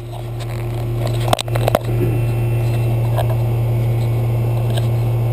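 York air-conditioning system's outdoor condensing unit running, a steady loud hum with fan noise that builds up over the first second or so. A few sharp knocks come about a second and a half in. The system is low on refrigerant and is being charged.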